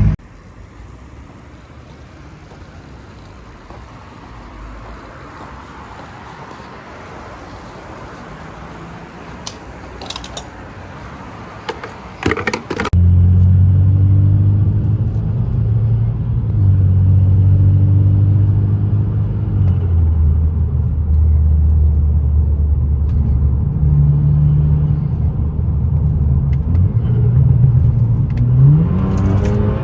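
Quiet low hum with a few clicks, then, about halfway through, the BMW 328i's 2.0-litre turbocharged four-cylinder comes in suddenly and runs steadily, its pitch stepping down twice. Near the end the engine revs up with a rising pitch.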